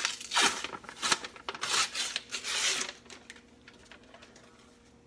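Paper wrapper being peeled and torn off a tube of refrigerated croissant dough, in several quick rasping pulls that stop about three seconds in.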